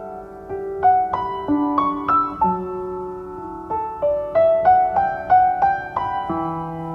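Background piano music: a slow melody of single notes, each struck and then fading, over held lower notes.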